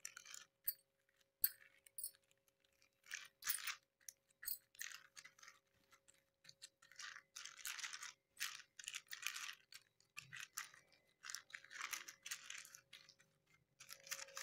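Thin polythene sheet crinkling in short irregular bursts as flat palms press and smooth soft potato mixture spread beneath it. A few light clinks from wrist bangles near the start.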